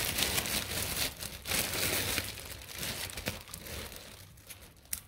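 Plastic snack packet crinkling and rustling as treats are taken out of it, busiest for the first few seconds and then dying down.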